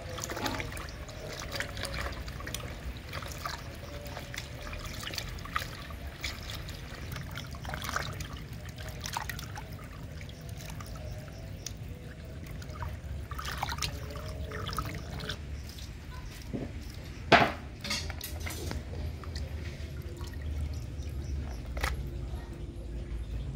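Water running from a hose into a plastic bucket as a hand rubs and rinses chunks of raw meat, with irregular small splashes and sloshes. One sudden loud sound about 17 seconds in is the loudest thing.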